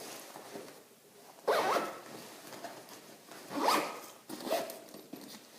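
Zipper on a tactical gear pouch being pulled, in two long strokes about two seconds apart, followed by a couple of shorter tugs.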